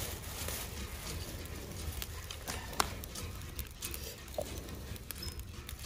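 Dry twigs rustling and snapping in a few sharp clicks as they are laid by hand onto charcoal in a small brick hearth, over a low rumble.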